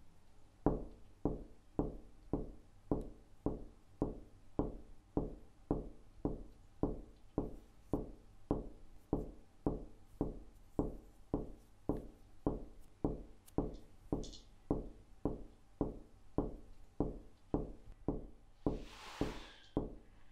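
Steady, evenly spaced low knocks, about two a second, like a slow pulse. A short hissing whoosh swells near the end.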